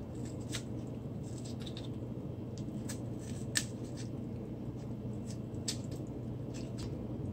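Tomato being cut into pieces by hand: faint scattered soft clicks and squelches, several a few seconds apart, over a low steady background hum.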